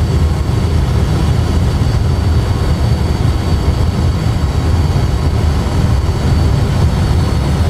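Airbus A320 full flight simulator's sound system playing the landing rollout: a loud, steady low rumble of engines and runway roll, with a faint steady high whine above it, as the aircraft slows on the runway under pedal braking.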